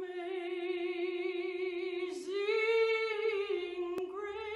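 A woman's voice singing unaccompanied: long held notes with vibrato, stepping up in pitch a little after two seconds in and holding there. A brief click sounds near the end.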